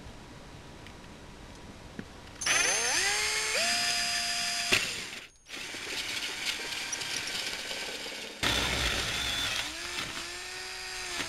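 Electric drill spinning a 1.5-inch hole saw as it cuts through the hard shell of a dried gourd. The motor speeds up with a rising whine about two seconds in, runs steadily, cuts out briefly around the middle, then runs again and speeds up once more near the end.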